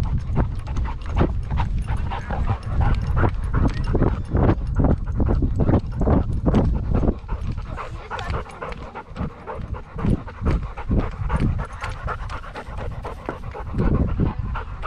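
A dog panting right at a body-mounted camera's microphone, a steady run of quick breaths about two a second. The panting eases off about halfway through and picks up again near the end.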